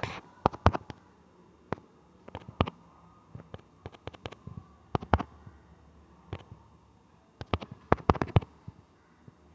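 Irregular clicks of typing on a smartphone's on-screen keyboard, some single and some in quick runs of three or four.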